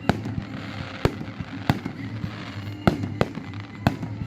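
Fireworks going off: about six sharp bangs at irregular intervals over a steady low background.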